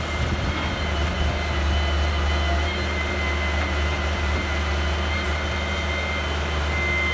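Heavy machinery engine running steadily with a low hum, and a thin steady high whine above it.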